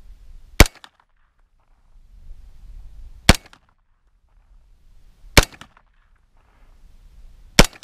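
Four single 9mm shots from a KE Arms AR9 pistol-caliber AR pistol, fired one at a time about two to three seconds apart.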